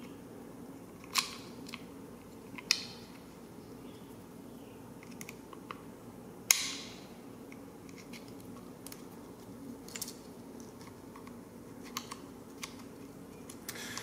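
Screwdriver tip and cable end clicking and scraping against the plastic housing of a BMW E36 ASC throttle actuator as the new cable's crimped ferrule is worked into it: a few sharp clicks, the loudest about halfway through, with smaller ticks between. A faint steady hum runs underneath.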